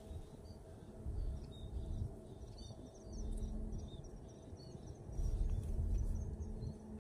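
Small birds chirping, short scattered calls, over low rumbling gusts of wind on the microphone and a faint steady hum.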